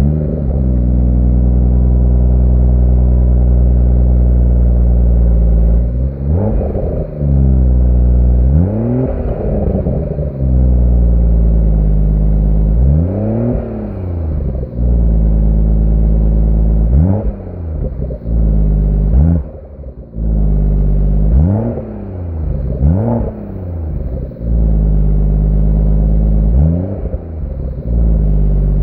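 BMW M140i's turbocharged straight-six starting, then idling and blipped to higher revs about eight times, each rev rising and falling back to idle. The exhaust is the part under suspicion for a rattle.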